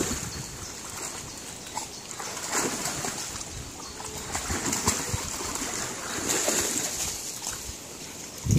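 Dog splashing and wading through a shallow stream: intermittent sloshes and splashes of water.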